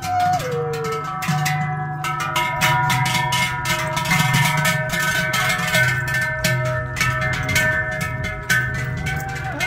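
Many large cowbells worn by walking cows ringing together: rapid clanging strikes whose tones overlap into a steady, chord-like din.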